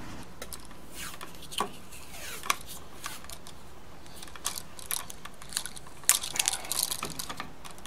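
A wall switch and its stiff wiring being handled at an electrical box: scattered short clicks and scrapes, busiest about six to seven seconds in.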